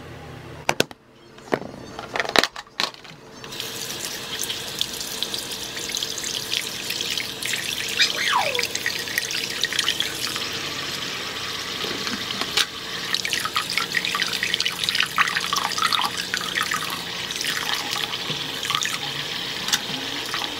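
Bathroom sink tap running into the basin, the stream splashing over hands that rinse a small item under it. A few sharp knocks come in the first three seconds, and the water starts about three and a half seconds in.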